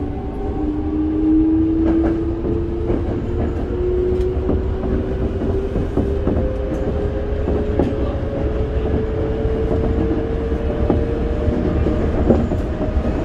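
Toei 5300-series train's Mitsubishi GTO-VVVF inverter and traction motors whining, the tone climbing slowly and steadily in pitch as the train gathers speed. Under it are the steady rumble of the car and the clack of wheels over rail joints.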